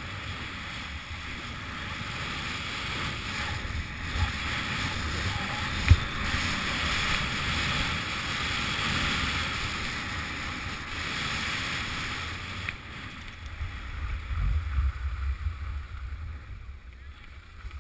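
Skis sliding over groomed snow, a steady hiss, with wind rumbling on the camera microphone and one sharp click about six seconds in. The hiss dies down near the end as the skier slows to a stop.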